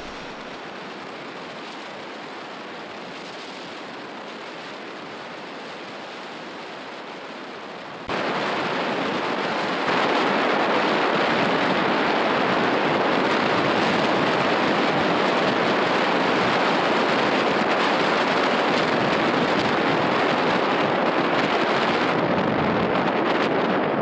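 Rushing water running steadily, as from a river or stream, with no distinct tones. It gets abruptly louder about eight seconds in and again about ten seconds in.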